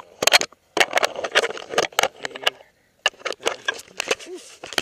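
Handling noise on an action camera's own microphone: irregular knocks, clicks and scrapes as hands grip and move the camera.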